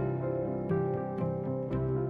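Background music: gentle instrumental with plucked, harp- or piano-like notes at an even pace.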